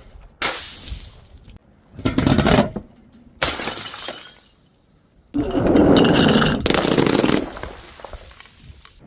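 Glass bottles shattering: four separate sudden breaks, each dying away, the last one the loudest and longest.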